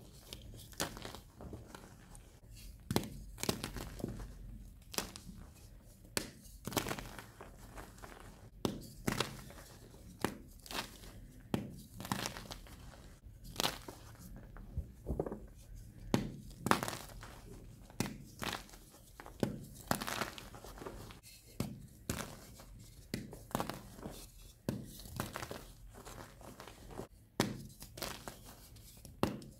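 Blocks of gym chalk crushed and crumbled by hand into loose chalk powder: irregular crisp crunches, roughly one a second, with soft powdery rustling between them.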